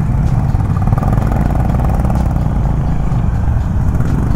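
Honda CB350's single-cylinder engine running steadily at low speed as the motorcycle rolls along, heard from the rider's seat.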